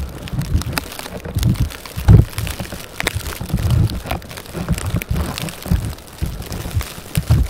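Blizzard wind buffeting the microphone in irregular, rumbling gusts, with scattered sharp ticks between them.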